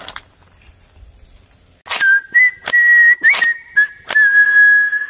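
Whistled jingle: a high whistle held mostly on one note, with a couple of quick upward slides, over several sharp percussive hits. It starts suddenly about two seconds in, after faint low background noise.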